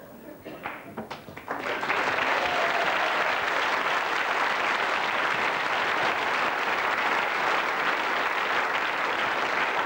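Studio audience applauding: a few scattered claps, then full applause from about a second and a half in, holding steady.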